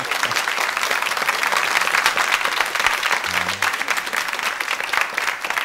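Studio audience applauding: dense, steady clapping from a crowd of people.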